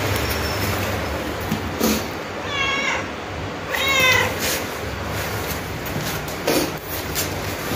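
Tabby-and-white cat meowing: two clear meows about a second apart near the middle, then a fainter one later, over a steady background hiss.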